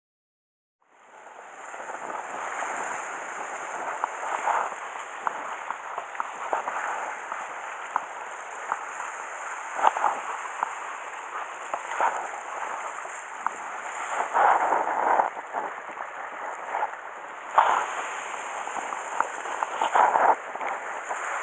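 Sea surf washing against rocks: a steady rushing noise with scattered sharp crackles and taps, starting about a second in.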